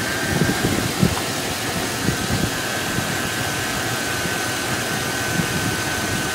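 Engine idling while its tight serpentine belt turns four alternators on a quad alternator bracket, all of them turning and charging. A steady high whine sits over the even running noise.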